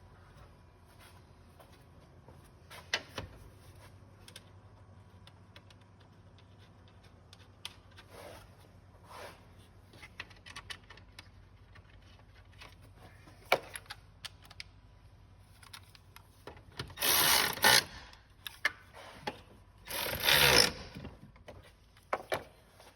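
Hand ratchet clicking as the fan shroud's two 10 mm bolts are run in, in two loud spells of about a second each near the end. Scattered clinks and knocks of tools and parts come before.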